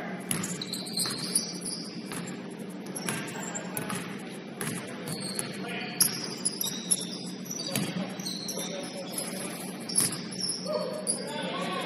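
Basketball game sounds in a gym: a ball bouncing on the court in scattered knocks and sneakers squeaking, with players' voices in the background that grow clearer near the end.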